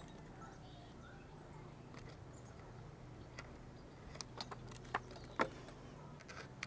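A few faint metallic clicks and clinks from steel hose clamps (Jubilee clips) and hand tools being handled while plastic tubing is fitted, most of them in the second half, over a quiet background.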